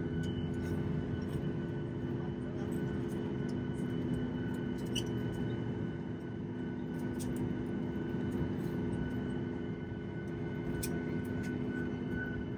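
Boeing 737 MAX jet airliner engines running steadily: a constant hum and rush with several held whining tones, and a few faint clicks.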